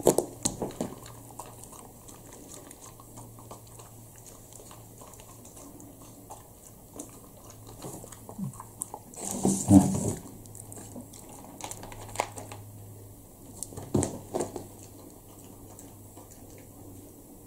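Shiba Inu puppy crunching dry kibble, with scattered small clicks and rustles as she noses food across a plastic table cover. Louder knocks and rustling come just after the start, again about ten seconds in, and once more around fourteen seconds.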